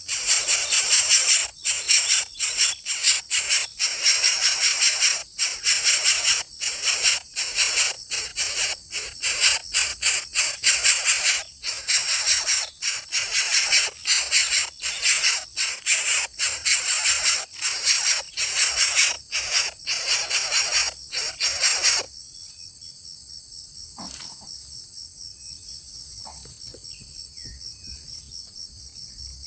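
Loud hiss in rapid, irregular pulses that cuts off suddenly about 22 seconds in. It gives way to a steady, high-pitched chorus of crickets or other insects, with a few faint chirps.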